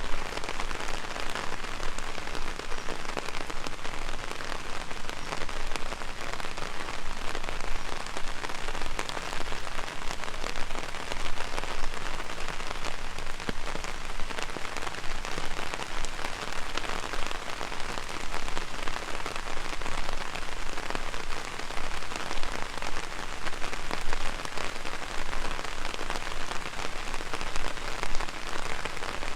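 Heavy rain falling on an umbrella: a dense, steady patter with many sharp individual drop taps.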